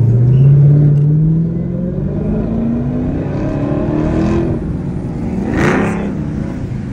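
Dodge Hellcat's supercharged 6.2-litre V8 accelerating hard, its pitch climbing steadily for about four and a half seconds. A short sharp burst of noise follows about a second later.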